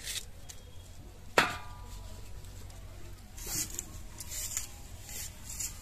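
Red onion being sliced against a rusty upright fixed blade: one sharp knock about a second and a half in, then several short, crisp cutting strokes in the second half.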